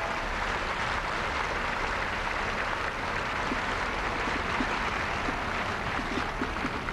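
Crowd of spectators applauding steadily, an even crackling clatter of many hands.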